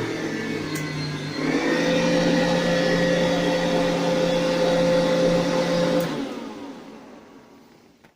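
Montgomery Ward vacuum cleaner running with a steady hum, its pitch shifting about a second and a half in. About six seconds in there is a click and the motor winds down and fades out.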